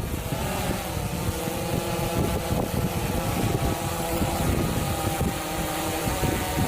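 DJI Phantom 3 quadcopter's propellers whining steadily, the pitch wavering slightly as the motors adjust against gusts, under heavy wind rumble on the microphone.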